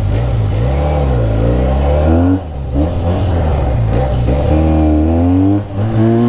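A Benelli sport motorcycle's engine revved while standing still. The throttle is blipped about three times, and each time the pitch climbs steeply and then falls back as it is released.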